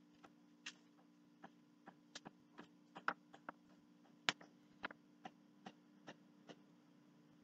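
Faint, irregular clicks and crackles of newspaper being handled and laid on a poster board, over a faint steady low hum.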